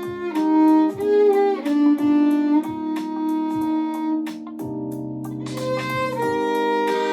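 Violin playing a melody over a pop backing track with a steady beat.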